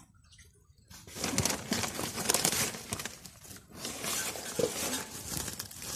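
A hand rummaging through dry bedding in a duck's laying spot: rustling and crinkling with small crackles, starting about a second in, with a short lull a little past halfway.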